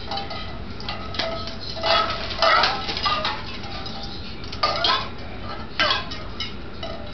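An African grey parrot bathing in ice water, flapping its wings in a glass bowl and knocking against the stainless steel bowl set inside it. Water splashes and dishes clink and clatter, with about five sharp hits, the loudest about two and a half seconds in.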